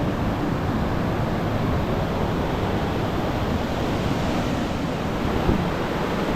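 Waterfall pouring: a steady, dense rush of falling water.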